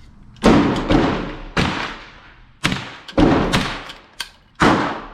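Shots from an AR-15 pistol fitted with a CMMG .22 LR conversion kit, about five single shots roughly a second apart, each a sharp crack with a fading echo.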